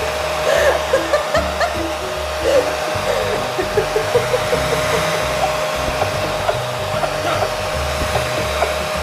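Pet grooming dryer blowing air through its hose, a steady rush of air with a steady whine.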